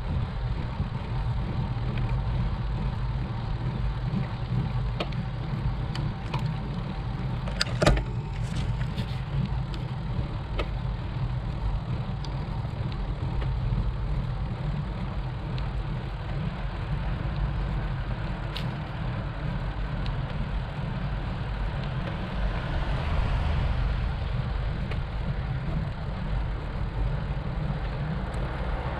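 Bicycle riding uphill on an asphalt road: a steady low rumble of wind and road vibration on the microphone, with one sharp knock about eight seconds in.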